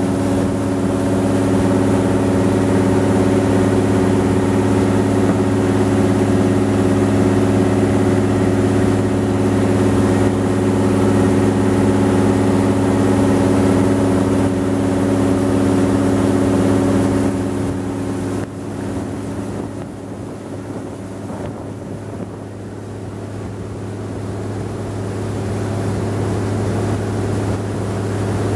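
A river tour boat's engine running steadily at speed, a loud low drone over the rush of the wake along the hull. About two-thirds of the way through the drone drops in level and thins out, then slowly grows louder again.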